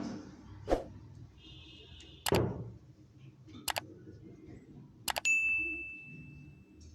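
Metal kitchenware knocking and clinking several times. Past the middle, a double strike sets a metal dish ringing with one clear tone that fades slowly.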